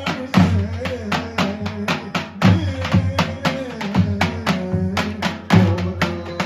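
Davul, the large Turkish double-headed drum, beating a dance rhythm with heavy bass strokes about twice a second and lighter stick taps between, under a wavering melody line.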